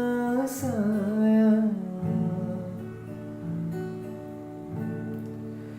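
A singer holds the last word of a Hindi song line over acoustic guitar. After about two seconds the voice stops, leaving acoustic guitar strummed gently on its own as an interlude.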